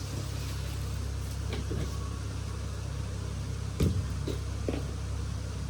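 Spinach being mixed by hand into gram-flour (besan) batter in a bowl, heard as a few soft knocks and rustles, the loudest knock about four seconds in, over a steady low hum.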